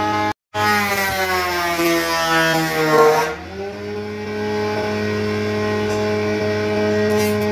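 Wood jointer running as a thick wooden slab is planed across it. The motor's pitch sags under the cut with a hiss of shaving wood, then about three seconds in the cutting noise stops and the machine speeds back up and runs steady. There is a very short break in the sound just after the start.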